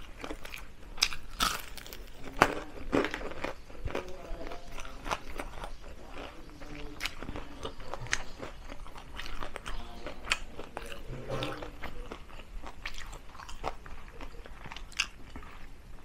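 Close-miked crunching and chewing of crispy deep-fried chicken feet, with sharp irregular cracks between softer chewing.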